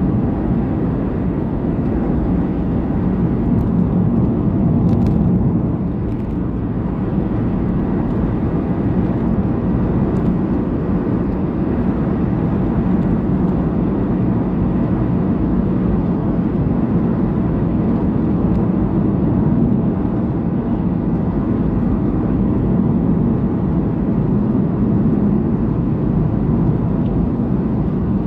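Steady low rumble of a car's tyres and engine heard from inside the cabin while driving on a highway.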